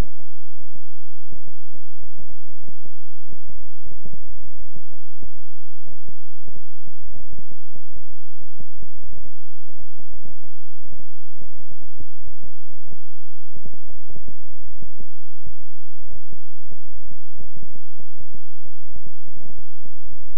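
Synthesised healing-frequency tone track: a loud, low electronic hum of several steady tones, broken by rapid uneven pulses several times a second.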